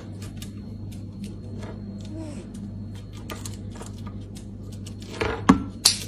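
A lory tapping and scraping at a sandwich cookie on a stone countertop: many irregular light clicks and taps, with a few louder knocks about five seconds in.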